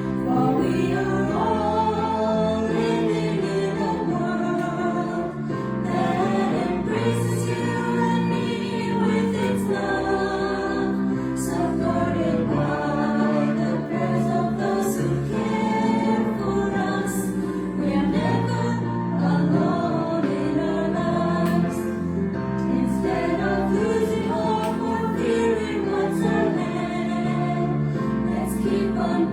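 Choral music: a choir singing a slow piece over sustained low notes.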